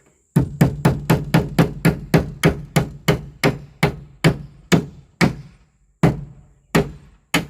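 Hand hammer driving large nails into wood: a quick run of sharp blows, about four a second, that slows and spaces out toward the end with a short pause about five and a half seconds in.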